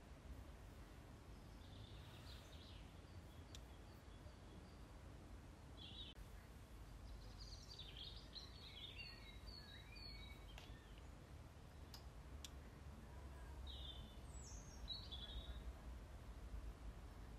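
Faint songbird calls over a low steady outdoor rumble: scattered short chirps and warbled phrases through the middle, and a couple of quick falling notes near the end.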